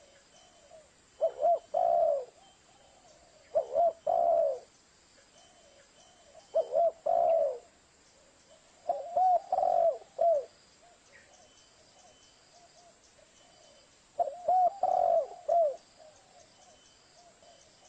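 Spotted dove cooing: five phrases, each a short note followed by a longer cooing note, with a longer pause near the middle.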